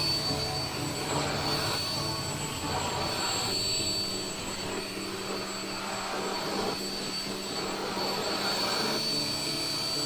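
2-in-1 handheld stick vacuum running with a steady high-pitched whine while its floor brush is pulled in strokes across bedding, giving a swishing swell every second or so. The brush is only pulled, never pushed, because the suction grips the fabric hard.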